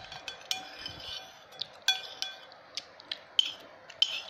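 A metal spoon clinking and scraping against a ceramic plate while scooping up the last bits of noodles. The strikes are sharp and irregular, about a dozen of them, and each leaves the plate briefly ringing.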